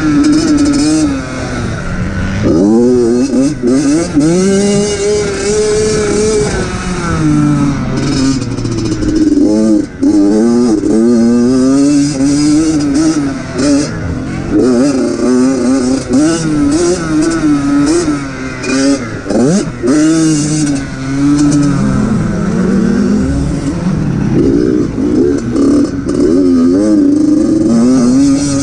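Dirt bike engine heard from on the bike, revving up and falling back again and again as the rider accelerates, shifts and rolls off through a motocross lap.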